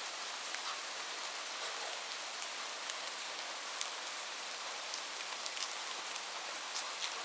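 Steady rain falling on a roof: an even hiss with many separate drops ticking through it.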